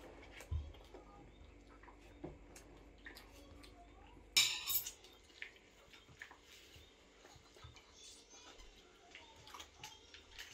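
Quiet clinks and taps of forks on plates at a meal, with one louder half-second clatter of tableware about four and a half seconds in.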